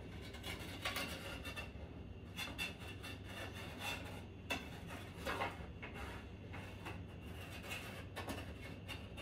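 A spatula scraping and tapping around the inside of a pan to loosen baked cornbread that is stuck to it: irregular soft scrapes and light clicks.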